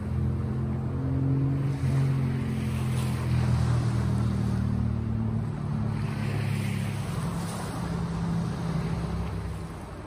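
Sea waves washing in, with a low steady engine hum beneath them that fades out near the end.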